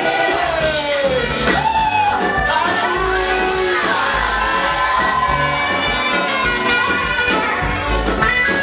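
Live gospel praise music: a group of singers leading a song over a band with a steady low bass beat, in a large hall.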